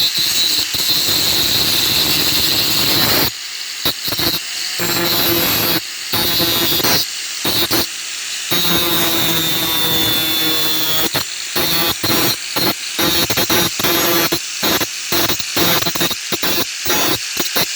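Grinder wheel grinding a steel saw blade: a loud harsh noise with a steady high whine, broken by many short gaps that come more often in the second half.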